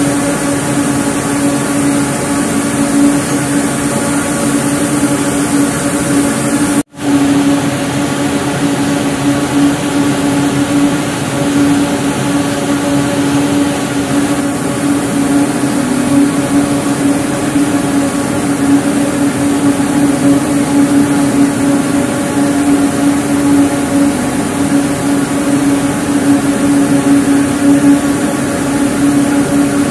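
Compact ring spinning frame running at full production: a loud, steady mechanical drone with a strong, even hum tone over dense whirring. The sound cuts out for an instant about seven seconds in.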